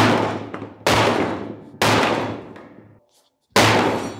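Four hammer blows on a sheet-metal motorcycle fender lying on a metal worktable, each a sharp bang followed by a metallic ring, about a second apart. The blows are knocking a row of dents into the fender.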